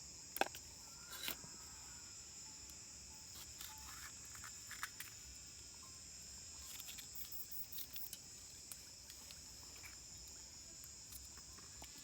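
Steady high-pitched chorus of insects buzzing, with a few scattered clicks and knocks, the loudest about half a second in.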